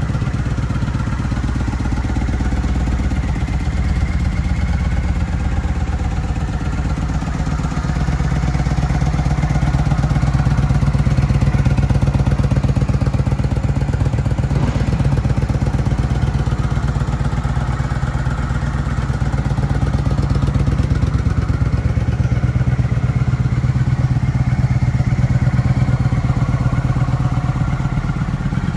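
Kawasaki VN900's V-twin engine idling steadily with a rapid, even beat of exhaust pulses. It grows a little louder twice, then eases back.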